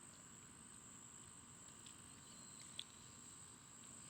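Faint, steady, high-pitched insect chorus of crickets, with a faint click about three quarters of the way through.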